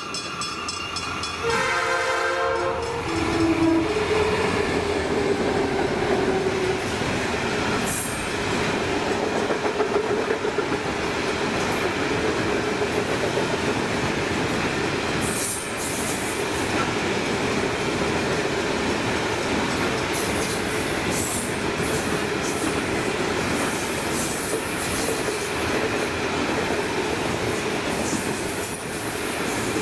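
A diesel freight locomotive sounds its horn about two seconds in, the notes stepping down in pitch as it passes. It is followed by the steady rumble and clatter of a long line of hopper wagons rolling past at speed.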